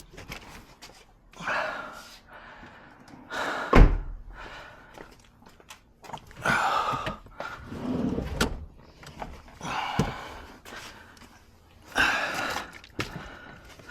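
Intermittent clunks, knocks and scrapes of hands and tools working parts loose inside a car interior, with one sharp knock about four seconds in.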